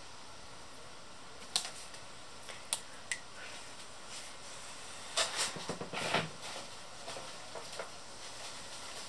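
A few sharp clicks and knocks over a faint steady hiss, with a denser cluster of them about five to six seconds in.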